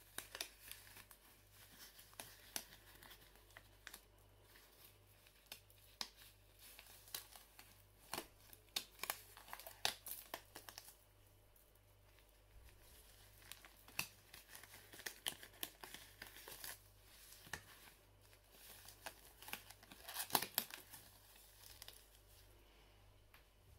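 Thin disposable latex gloves being pulled onto the hands: faint, irregular crinkling and rustling of the glove material with scattered sharp little clicks.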